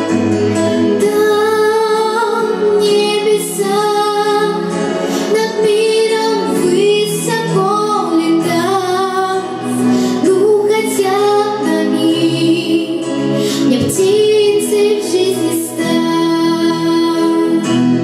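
A young girl singing a Russian song solo into a microphone, holding long notes, over instrumental accompaniment.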